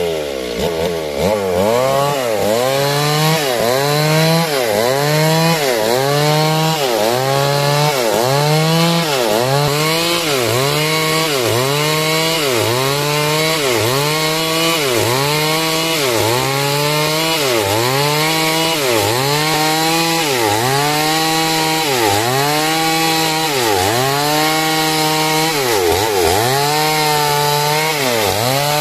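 Petrol chainsaw running at high revs and cutting lengthwise through timber. Its pitch dips under load and recovers in a steady rhythm about every second and a quarter as the bar is worked through the cut.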